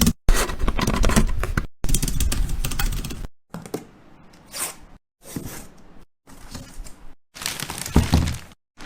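Handling of unboxing and restocking items: plastic packaging crinkling and tearing, with small knocks as things are set down. It comes in short stretches, each cut off abruptly by a moment of silence.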